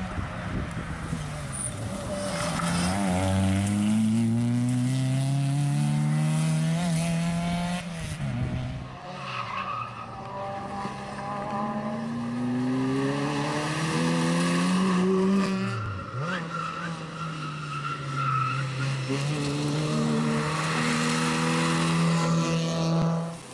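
Rally-prepared Ford Fiesta ST engine revving hard through the gears on a special stage, its note climbing, then dropping at each upshift. It lets off briefly twice, about 8 and 16 seconds in, before pulling hard again.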